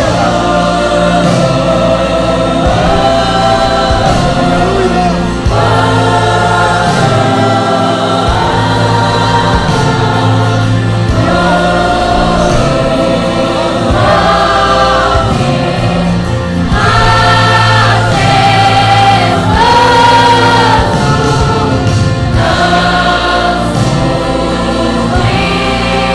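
Choir singing Christian worship music with instrumental accompaniment, many voices together in sustained phrases.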